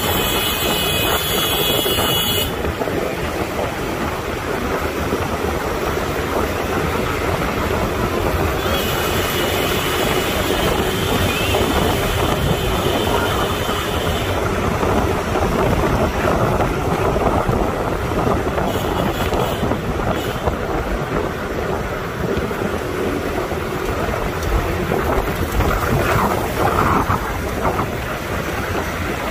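Steady rumble of a moving vehicle's engine and tyres on the road, with wind noise, heard from aboard the vehicle.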